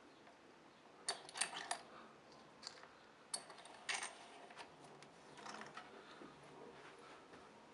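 Faint clicks and taps of a small bench vise and wire being handled, with wire set in the jaws and the vise's handle turned. There is a quick run of three clicks about a second in, then scattered single taps, the loudest and longest near four seconds in.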